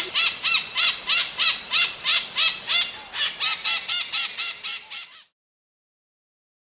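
A bird calling harshly and rapidly, about three rising-and-falling squawks a second, speeding up slightly and fading toward the end. The calls cut off abruptly about five seconds in, followed by silence.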